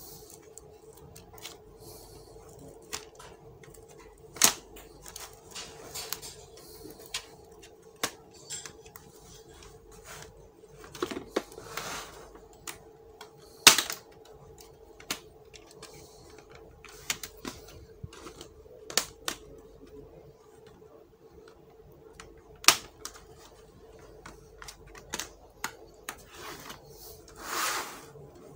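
Plastic clips of a laptop's bottom case snapping loose as it is pried open with a plastic pry tool: irregular sharp clicks and snaps, three of them much louder, over a faint steady hum.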